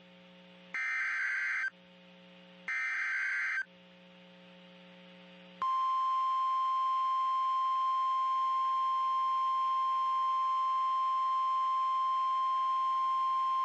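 NOAA Weather Radio Emergency Alert System signal: two roughly one-second bursts of SAME digital header tones, a low receiver hum between them, then about five and a half seconds in the steady 1050 Hz warning alarm tone starts and holds. The sequence announces an incoming Severe Thunderstorm Warning.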